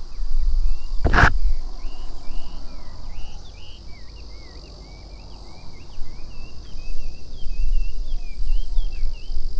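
A songbird singing a continuous run of short, varied chirping notes over a steady high insect drone, with wind rumbling on the microphone. A sharp knock sounds about a second in.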